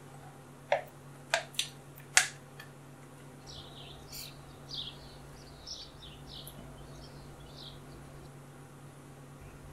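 Four sharp knocks of a kitchen utensil against a glass bowl in the first two seconds, then a run of short high chirps over a steady low hum.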